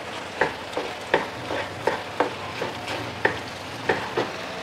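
Wooden spoon knocking and scraping against a nonstick wok, about three strokes a second, as chopped vegetables are stir-fried over high heat, with a steady sizzle underneath.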